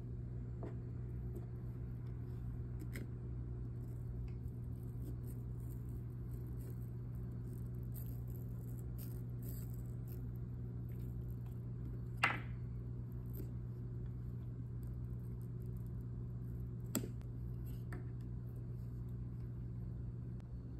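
Small knife blade scraping and cutting faintly through pumpkin rind and flesh over a steady low hum, with a short louder scrape about twelve seconds in and a sharp click a few seconds later.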